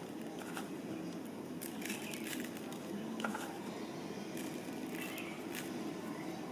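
Faint scattered clicks and rustling of seasoning being shaken over raw chicken pieces, over a steady room hum.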